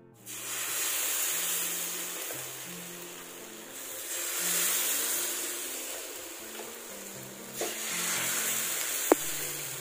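Thin rava dosa batter poured from a ladle onto a hot flat dosa pan, sizzling and swelling with each new pour as the lacy, holey dosa sets. Soft background music plays underneath, and a single sharp click comes near the end.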